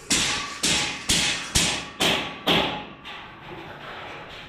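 Hammer blows on a building site: six sharp knocks about two a second, each ringing briefly, which then stop.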